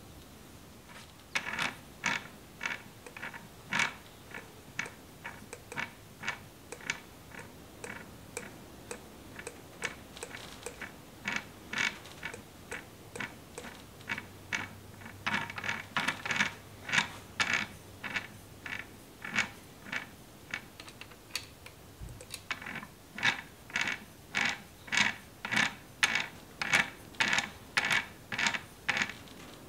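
Rhythmic metallic clicking, about two clicks a second, from the spur change gears of an 1890s metal lathe headstock being turned over.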